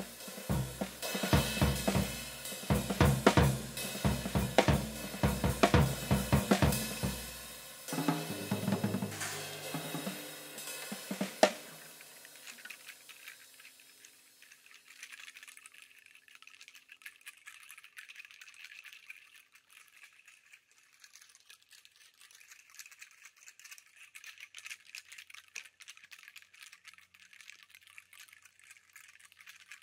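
Drum kit played solo: fast, dense strikes on kick, snare, hi-hat and cymbals for about eight seconds, then a few spaced hits ending on one last loud hit about eleven seconds in, with the cymbals ringing out. After that only a faint, even high crackle remains.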